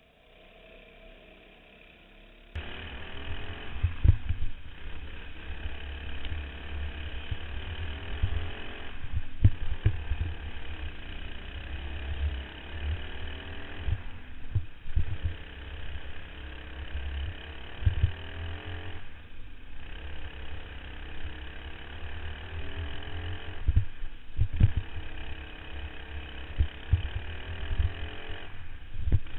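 Racing kart engine heard from the kart itself, faint for the first two seconds or so and then loud. Its note climbs along each straight and drops away about every five seconds as the throttle is lifted for the corners, over a heavy low rumble with repeated thumps.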